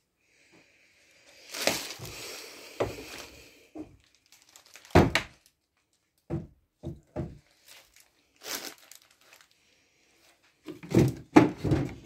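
Knocks and thunks of old wooden furniture being handled, cupboard doors and drawers opened and bumped. The loudest is a single thunk about five seconds in, followed by a few lighter knocks, and a burst of knocking and rustling near the end.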